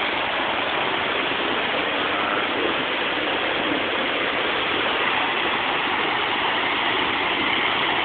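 Fast-moving floodwater of a swollen stream rushing steadily.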